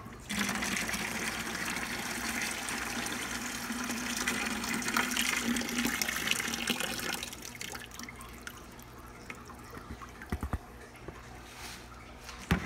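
Water from a fish shipping bag pouring through an aquarium net into a bucket for about seven seconds, then tapering off to scattered drips and a few small knocks.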